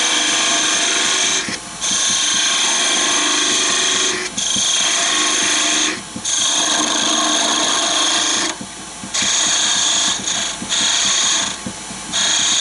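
Turning tool cutting into spinning wood on a lathe, a loud steady scraping hiss with a high ringing edge, in a run of cuts broken by short pauses every couple of seconds while making the cuts for the chess queen's crown.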